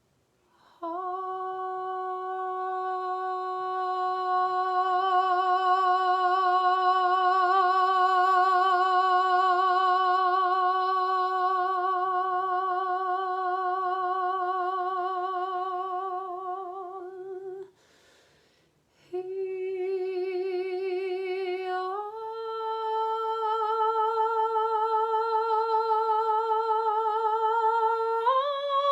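A woman's voice toning for sound healing, singing one long held note with vibrato for about seventeen seconds. After a breath the note returns and steps up in pitch twice near the end.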